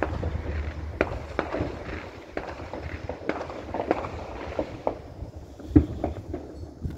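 Fireworks and firecrackers popping, many short sharp cracks at irregular intervals, the loudest one near the end.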